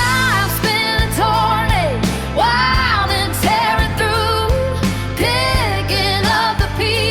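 AI-generated pop-rock song: a sung lead vocal with wavering, sliding long notes over bass and steady drum hits, the full band coming in right at the start.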